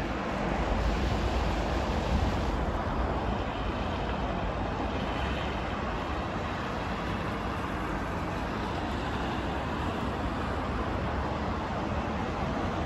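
Steady road traffic noise from cars on a highway interchange, a little louder in the first couple of seconds.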